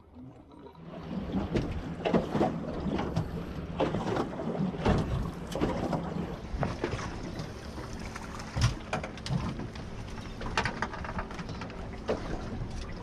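Irregular knocks and clatter aboard a small open fishing boat over a low steady hum, the loudest knock a little past the middle.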